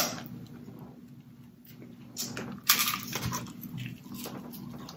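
Snow crab shells being cracked and picked apart by hand: scattered sharp snaps and crackles, the loudest about two and a half seconds in.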